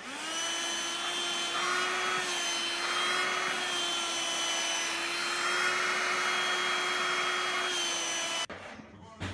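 Small handheld vacuum cleaner switching on, running with a steady motor whine while its nozzle is drawn over a cat's fur, and switching off abruptly near the end. Rougher rushing air comes and goes as the nozzle brushes the fur.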